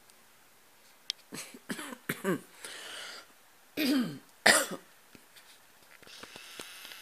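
Long-haired cat hacking and retching, with a run of rough coughs between about one and five seconds in.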